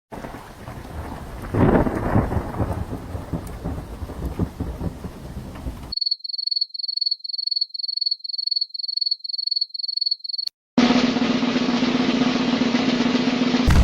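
A string of stock sound effects. First a thunderstorm with rain and a loud thunderclap about two seconds in. Then a high electronic beep repeating about twice a second for four seconds, and after a brief gap a steady low buzzing drone, cut off at the very end by a loud blast.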